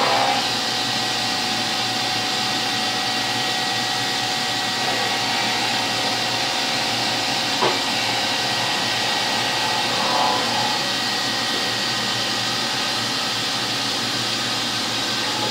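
CNC milling machine running a face mill slowly across the end of a clamped workpiece: a steady hiss and whir with a thin, constant whine, and a single short click about halfway through.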